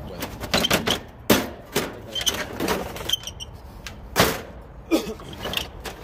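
Metal cabinet cover of an LG window air conditioner being worked loose and slid off its chassis: an irregular string of knocks, clunks and scrapes, the loudest a little past one second and just after four seconds.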